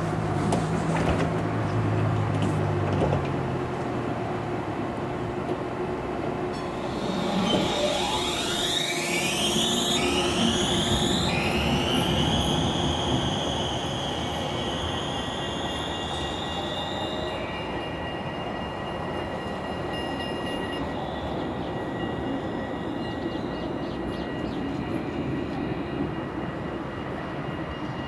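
Alstom Citadis tram pulling away from a stop. About seven seconds in, its electric traction drive gives a whine that rises steeply in pitch as it accelerates, then settles into a steady high tone. The running noise fades as the tram moves off.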